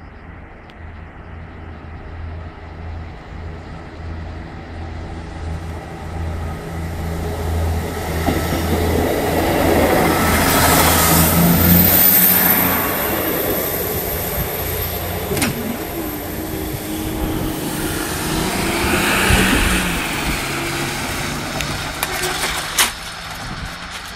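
A passenger train approaches and passes close by over a level crossing, loudest about ten to twelve seconds in and then easing away. Road traffic follows, with another swell near the end.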